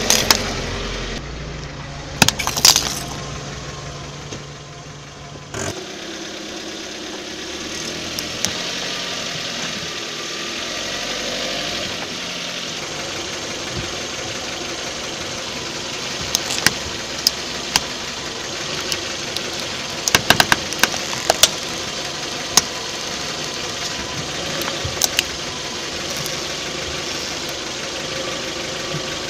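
A car engine running at idle as a tyre rolls over toys on asphalt, with sharp cracks and snaps as they break under it: one loud one at the start, two about two seconds in, and a run of cracks between about 16 and 22 seconds in.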